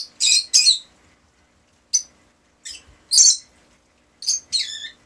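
Pet parrot giving a run of short, high squawks and chirps, about seven calls spread over five seconds.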